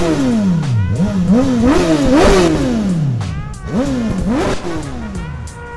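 Motorcycle engine revved in a run of quick throttle blips, the pitch jumping up and dropping back several times, then fading down near the end.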